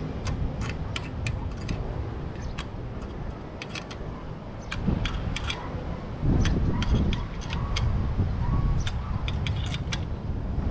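Scattered light metallic clicks and ticks of a hex key working the clamp bolts on a lightning arrester's mounting bracket. Under them runs a low rumble that grows louder about six seconds in.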